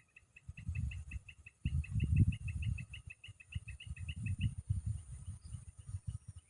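A bird calling in a fast, even run of short chirps, about eight a second, which stops about four and a half seconds in. Irregular low rumbling noise runs underneath.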